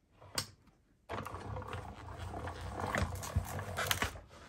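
A Stampin' Cut & Emboss die-cutting machine being hand-cranked, pressing a plate-and-die sandwich through its rollers. After a single click, it gives a steady low rumble that starts about a second in and lasts about three seconds.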